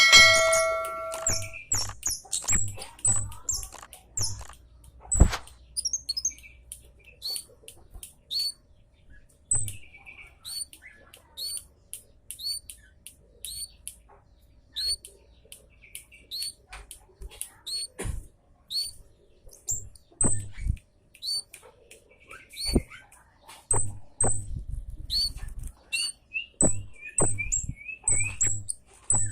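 Scarlet-headed flowerpecker (cabe jawa) giving sharp, very high 'tsit' calls, repeated irregularly, with a quick run of lower notes near the end. A few sharp knocks fall in between.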